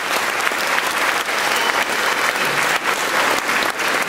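Audience applauding, many hands clapping at once, steady and continuous.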